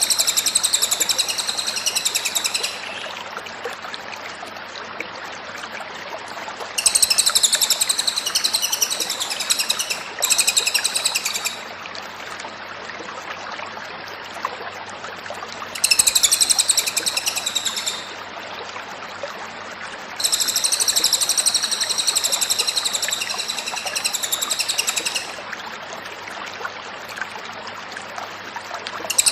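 Cililin songbird singing hard in repeated high, rapid song bouts of two to five seconds each, about five in all, with short pauses of steady hiss between them.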